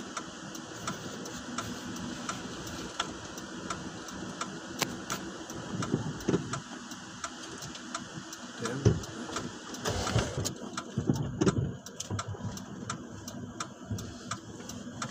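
A vehicle's engine idling steadily, with frequent small clicks over it and a few louder low, irregular sounds about six seconds in and again around ten to twelve seconds in.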